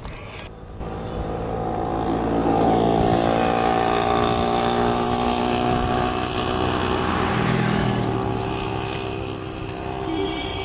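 A motor vehicle's engine passing close by: a steady engine note swells over the first few seconds, holds, then slowly fades near the end.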